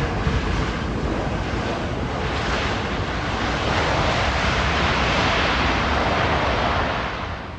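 Jet engines of an American Airlines Airbus A321neo rushing during its landing rollout, swelling a few seconds in and falling away sharply near the end.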